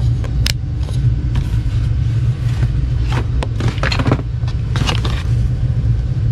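A steady low rumble under scattered clicks, knocks and rustles as objects are handled and set in place.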